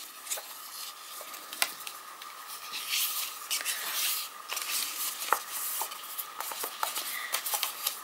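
Paper rustling and soft taps and clicks of paper being handled and pressed as a pocket is glued shut, over a faint steady high hum.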